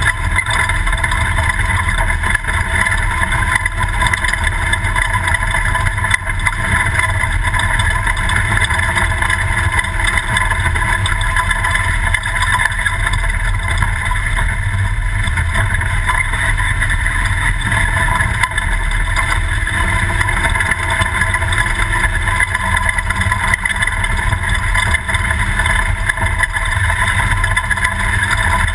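Class 2000 Toyota desert race truck under way off-road: a loud, steady mix of engine, drivetrain and rough-terrain noise with a constant low rumble.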